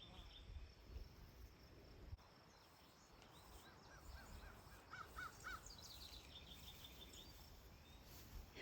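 Quiet open-air background with faint distant bird calls: a run of about six short, repeated arching notes in the middle, with thin higher chirps around them. A low rumble, like wind or handling on the microphone, comes in the first two seconds.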